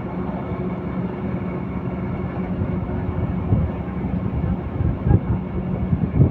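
Steady engine hum and road rumble from a moving vehicle, with irregular low buffeting bumps that grow in the second half.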